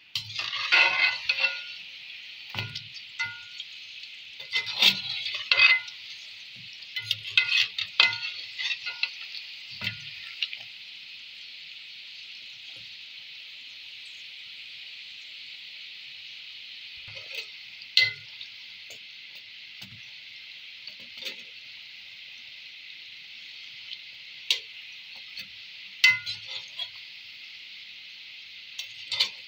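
Balushahi deep-frying in hot ghee in a kadai: a steady sizzle, with clinks and scrapes of a wire spider skimmer against the pan and the pieces, frequent in the first ten seconds and then only now and then.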